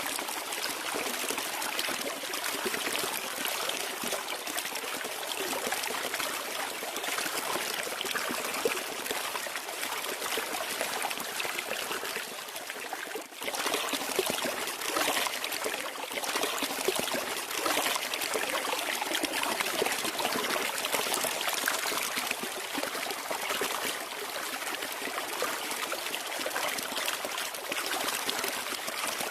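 Flowing water trickling steadily, a continuous splashing rush with no distinct drips or tones. About halfway through it dips for a moment and then carries on slightly louder.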